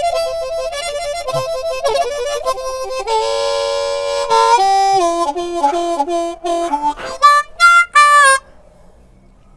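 Harmonica playing a melody of single notes, with a held chord of several notes about three to four and a half seconds in. It ends with three short, separate notes and stops a little after eight seconds in.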